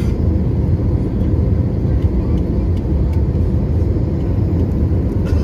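Steady cabin noise of an Airbus A320 on approach, heard from inside the cabin: jet engine and airflow rumble, mostly low and even.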